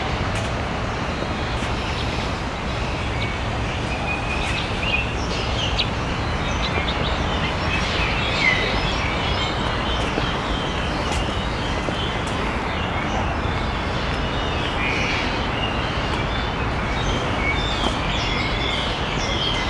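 Steady outdoor background rumble with small birds chirping now and then.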